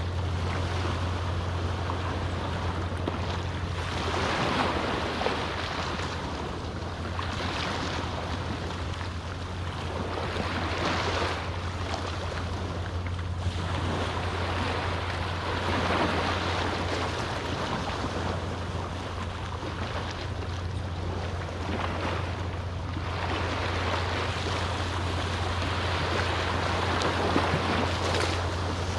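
Small waves on a calm sea breaking and washing up a beach, a fresh wash every few seconds. A steady low hum runs underneath.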